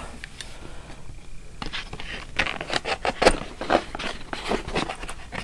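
Handling noise from a boxed replica wand and its foam insert being moved about: a run of short scrapes, taps and rustles, thickest from about two to five seconds in.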